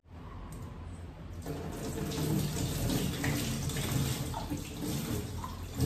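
Water running from a tap into a sink, growing louder about a second and a half in.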